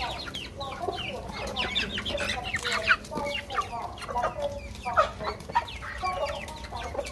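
A flock of chickens clucking busily while feeding, many short calls overlapping. Scattered clicks of beaks pecking at mash in a metal bowl run underneath.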